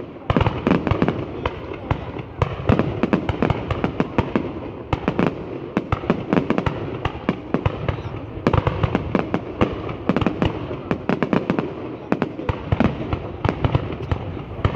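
Fireworks going off in a dense, unbroken barrage of sharp bangs and crackles, many a second.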